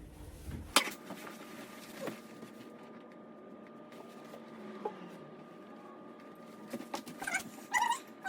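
A sharp click about a second in and a few faint ticks over a steady low hum, then a cat meowing a few times near the end.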